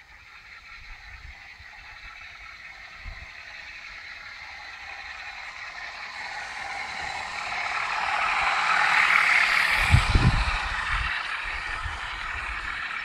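00 gauge model Class 37 diesel locomotive with a DCC sound decoder approaching and passing, its speaker playing diesel engine sound over the rumble of wheels on track. It grows steadily louder, is loudest about nine seconds in as the locomotive goes by, and then the hopper wagons roll past with a few low knocks.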